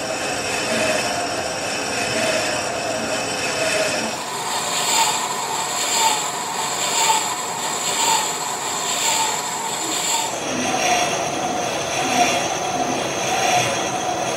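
Vertical lathe turning a grey cast iron pulley blank: steady machining noise with a high metallic squeal from the cut. The sound swells about once a second, and the squeal changes pitch about two-thirds of the way through.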